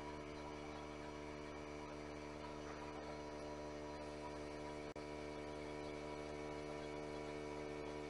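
Steady electrical mains hum, a stack of even, unchanging tones, with one very brief dropout about five seconds in.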